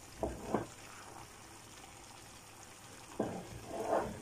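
A spatula stirring braised cabbage and chicken giblets in a frying pan: two short bouts of stirring, just after the start and again about three seconds in, over a faint simmer.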